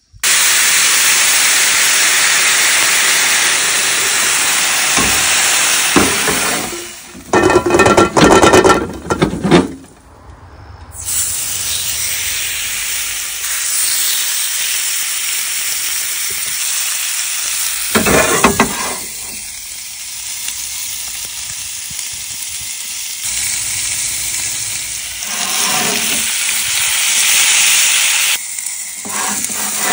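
Steaks sizzling in a hot cast-iron grill pan, a steady hiss. It is broken about a third of the way in by a few seconds of loud knocking and rattling, with shorter clatters later.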